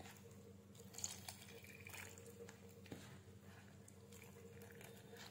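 Faint wet squishing of a steel spoon stirring rice flour and water into batter in a plastic container, with a few soft ticks about one and three seconds in, over a steady low hum.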